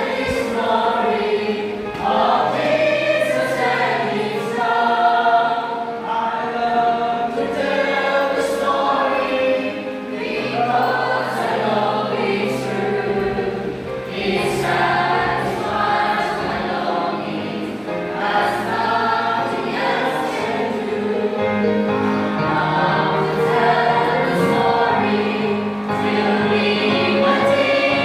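Music with a choir of several voices singing long held notes over a steady, sustained bass line.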